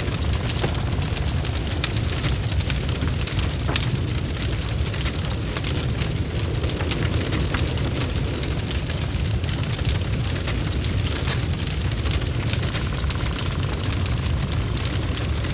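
Bonfire crackling: many sharp snaps and pops over a steady low rumble of burning.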